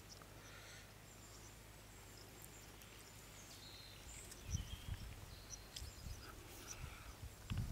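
Faint outdoor ambience: small birds chirping and insects in the background. From about halfway in, low bumps and rustles close to the microphone.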